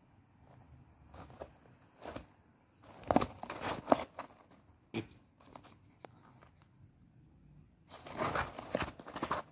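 Cardboard box crinkling and scraping as a kitten wriggles and claws about inside it. The rustling comes in two loud spells, about three seconds in and again near the end, with a sharp click or two in between.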